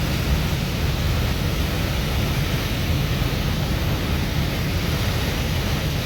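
Boat under way on the river: a steady rush of wind on the microphone over the running boat motor, with no change in pace.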